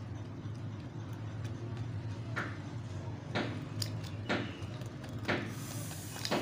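Light clicks and taps of hands handling a cardboard wind-turbine model and its wires: about six sharp clicks from about two seconds in, with a short hiss near the end, over a steady low hum.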